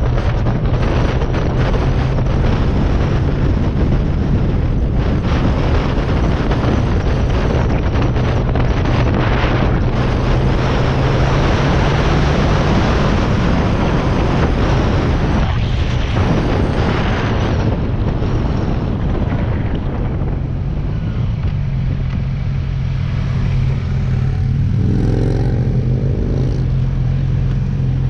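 Sport motorcycle's engine running steadily while riding, under heavy wind noise on the microphone. The wind noise eases in the second half as the bike slows toward a stop.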